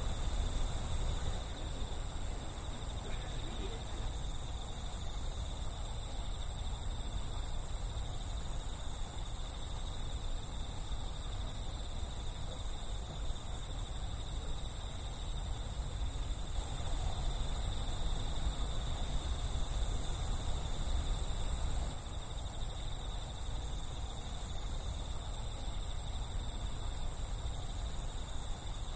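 Night insects trilling steadily in several high, even tones, over a constant low rumble.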